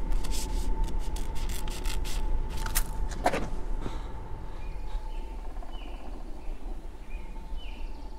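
Film soundtrack ambience: a low rumble under a held high tone, with a run of crackling clicks in the first half. From about five seconds in, short bird chirps come in over outdoor woodland air.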